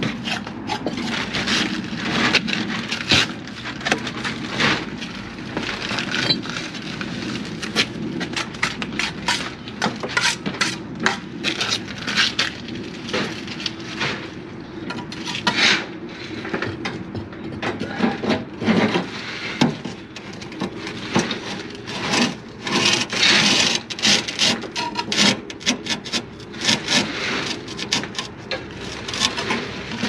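A bricklayer's hand work at a brick wall: a hand tool and bricks repeatedly scraping, rubbing and knocking on brickwork and mortar, in irregular strokes with a stretch of louder scraping about two thirds of the way in.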